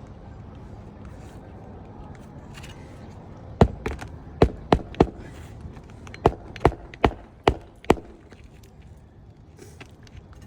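Hammer driving roofing nails through asphalt shingles. There are about ten sharp blows, starting about three and a half seconds in, in two quick runs with a short pause between them.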